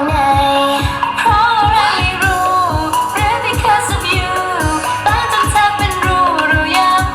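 T-pop song with female singing over a steady, driving beat, played loud.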